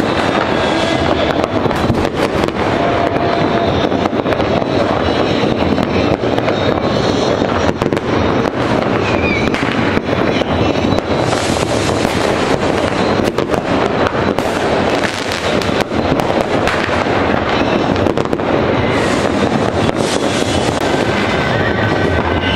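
Many fireworks and firecrackers going off at once, a continuous mass of overlapping bangs and crackles with no pause, and a couple of short rocket whistles.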